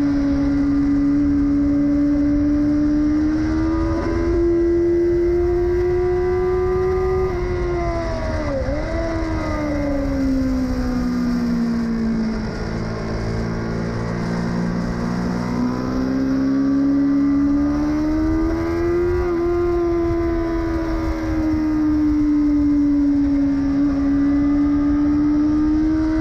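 Yamaha R6's inline-four engine running on track, firing on only three cylinders. Its pitch climbs, dips sharply for a moment about eight seconds in, sinks low through the middle and climbs again as the bike speeds up.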